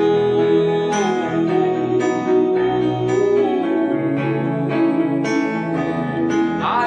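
Slow gospel worship music between sung lines: keyboard and guitar chords under one long held note that fades about three seconds in.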